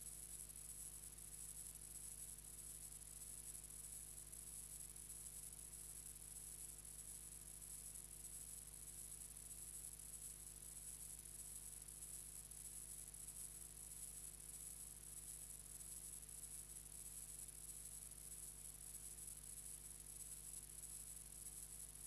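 Near silence: the blank soundtrack of a silent film transfer, a steady low electrical hum under a faint high hiss.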